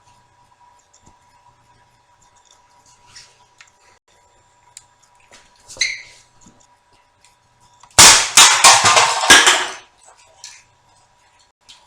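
HK USP 12-gram CO2 airsoft pistol shooting at cans: a single crack with a brief metallic ring about six seconds in, then a quick string of loud shots and clatter lasting about two seconds near the end.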